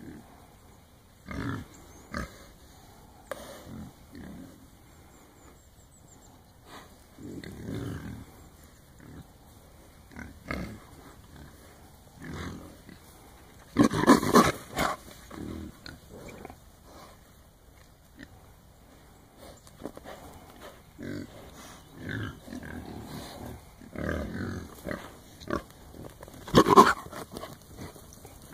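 A herd of trapped wild hogs calling in irregular bursts, loudest about halfway through and again near the end.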